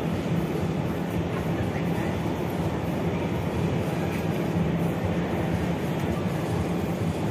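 Steady low rumbling hum with a constant low tone, the background noise of a large indoor hall, with no distinct events.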